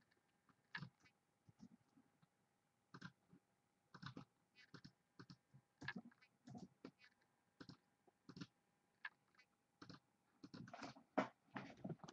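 Irregular clicks and keystrokes from a computer mouse and keyboard as the randomised list is copied and pasted, growing busier near the end, over a faint steady hum.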